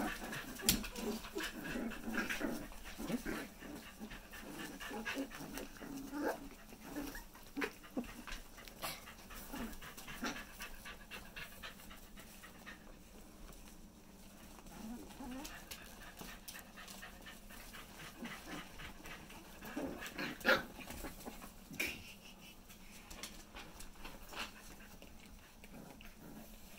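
Four-week-old Corgi puppies moving about a pen: scattered clicks and scuffles of small paws and claws on mats, with a few short puppy whimpers, one a little louder about twenty seconds in.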